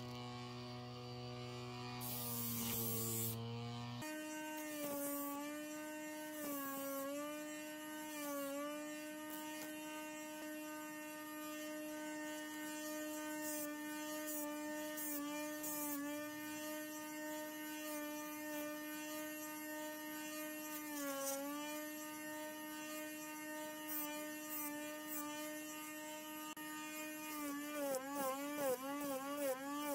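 Small electric motor of a homemade disc sander running with a steady whine. A lower hum shifts up to the whine about four seconds in. The pitch dips briefly a few times and wavers rapidly near the end as a piece of wood is pressed against the spinning sanding disc.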